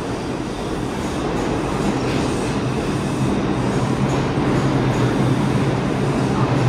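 Vintage R33/R36 subway train running on the rails: a steady rumble with a low hum that grows a little louder.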